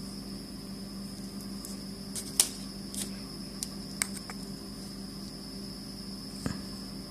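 A few light, sharp clicks and taps from handling small phone parts during battery-cable reconnection on an opened HTC One M8. The loudest click comes about two and a half seconds in. Underneath is a steady electrical hum with a thin high-pitched whine.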